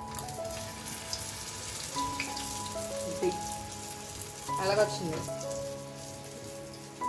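Oil sizzling steadily as batter-dipped eggs deep-fry for chilli egg, under a light instrumental background tune. A brief warbling sound rises above it about five seconds in.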